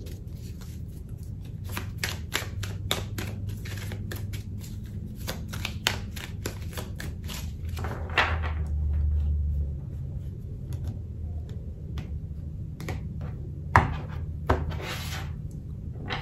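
A deck of tarot cards being shuffled by hand: a dense, irregular run of soft card clicks and slides as the cards are passed from hand to hand. A few louder slaps and swishes stand out, about eight seconds in and again near fourteen seconds, the sharpest one there.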